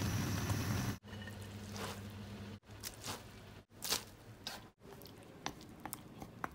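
Instant noodles boiling in a wok over a burner, a steady low rumble for about the first second. After several abrupt cuts come quieter stretches with scattered soft clicks and wet squelches as thick red sauce is dropped onto a bowl of drained noodles near the end.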